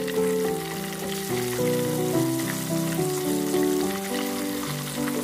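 Chicken wings deep-frying in hot oil, a steady sizzle and bubbling, under louder background music of held notes that change every fraction of a second.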